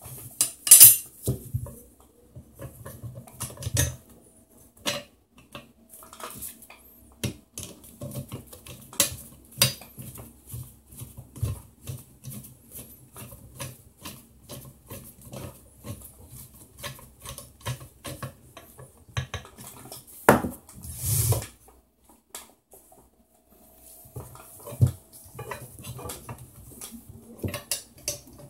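Metal parts of a TV wall mount being handled and fitted together: irregular clinks and knocks of brackets, screws and washers, with one louder scraping rasp lasting about a second around two-thirds of the way through.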